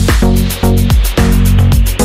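Background electronic music with a steady beat and a bass line.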